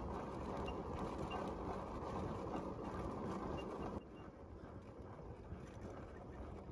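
Wind rumbling on the microphone and in the trees, a steady low noise that drops off abruptly about four seconds in, with a few faint high chirps.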